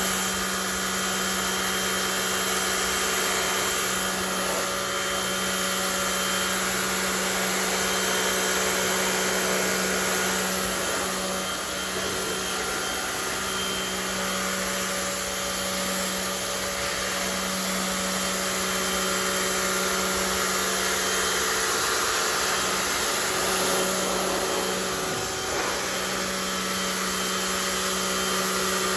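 Rock&Rocker HWY12 electric pressure washer running steadily, its motor and pump humming under the hiss of the water jet, with a couple of brief dips in level.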